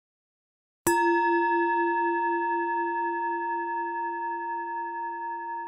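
A singing bowl struck once about a second in, then ringing on with a low hum and several higher overtones that fade slowly, the lowest wavering slightly. It is the cue to move on to the next hand position.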